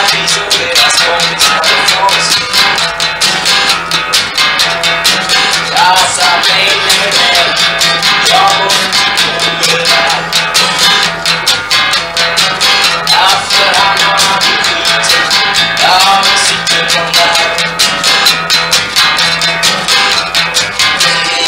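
Acoustic guitar strummed in a steady rhythm during an instrumental passage, with a few sliding notes above it. It is an old, primitive home tape recording that has been copied from reel-to-reel to cassette to mp3.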